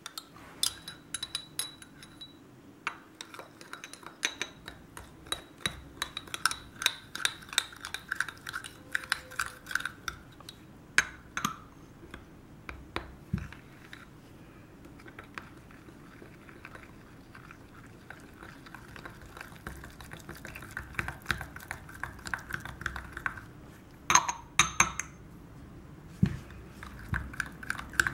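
A small metal spoon stirring and scraping a thick paste of melted coconut oil, baking soda and cornstarch in a small glass jar, with many quick clinks and taps of the spoon against the glass and a few louder clinks near the end.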